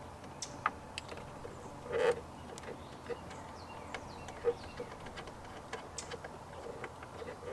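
A 3/8-inch-drive ratchet with a 10 mm socket on an extension clicking in short, irregular runs as the nuts holding a pickup's side mirror are loosened from inside the door. A short, louder bump comes about two seconds in.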